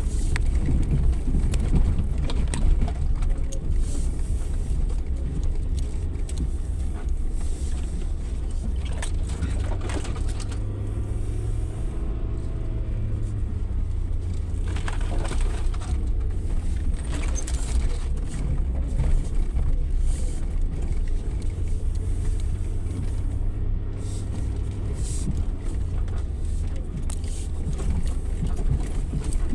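Suzuki Jimny 4x4 driving off-road: a steady low engine and road drone, broken by frequent knocks and bumps.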